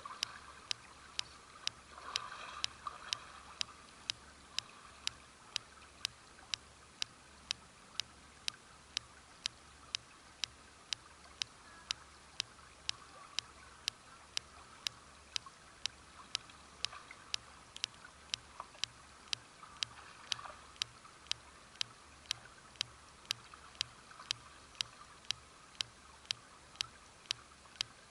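Sharp, regular clicking, about two clicks a second, over the faint sound of running creek water.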